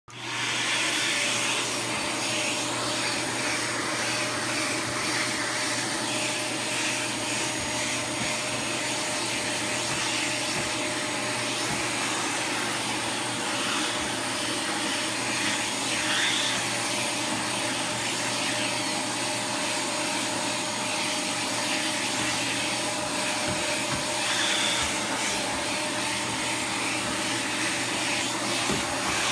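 Dyson DC77 Animal upright vacuum cleaner running steadily, its hose wand and tangle-free turbine tool drawing over carpeted stair treads.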